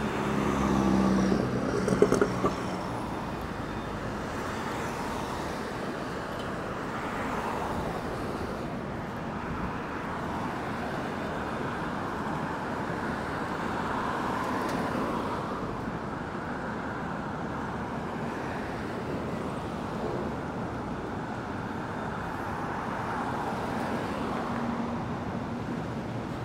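Steady city street traffic noise. A vehicle's low engine hum swells in the first couple of seconds, with a few sharp knocks about two seconds in.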